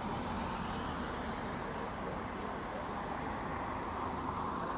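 Steady outdoor background of motor vehicles: a low, even engine hum with a general traffic-like hiss over it, no single event standing out.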